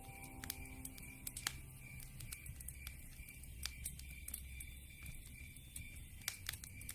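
Wood fire crackling: sharp pops and snaps at irregular intervals over a low hiss. Soft, sustained background music notes fade out in the first two seconds.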